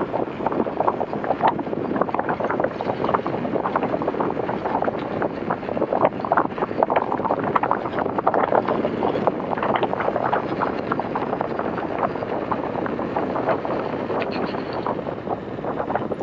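Wind rushing and buffeting over the microphone while riding a Begode EX.N electric unicycle at speed, with many irregular gusty spikes.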